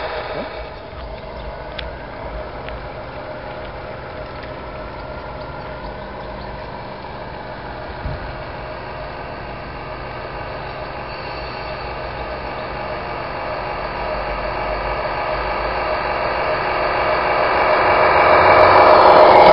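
Engine sound of a radio-controlled model Scania truck, a steady droning hum. It fades as the truck drives away, then grows louder over the last few seconds as it comes back close.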